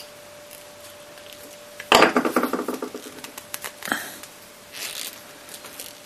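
Utility knife set down on a wooden workbench: a sharp clatter with a brief ringing about two seconds in, then a few lighter knocks and a short rustle, over a faint steady hum.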